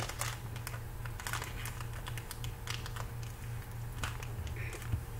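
Trading cards being handled and shuffled, with irregular light clicks and taps of card stock and plastic over a steady low hum.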